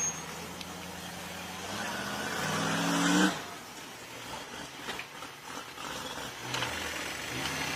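Jeep engine revving, rising in pitch for about a second and a half, then dropping off suddenly about three seconds in, after which it runs lower and unevenly with a few knocks.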